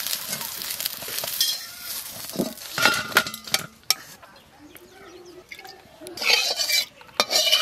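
Metal spatula scraping fried brinjal slices out of a kadai of hot mustard oil and clinking them into a steel bowl, with the oil sizzling. The emptied pan's oil sizzles again, louder, near the end.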